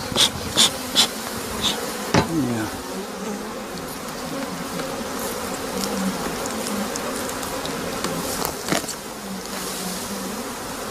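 A mass of honey bees buzzing in a steady hum around an opened hive. A quick run of sharp clicks or knocks comes in the first couple of seconds, and one more comes later on.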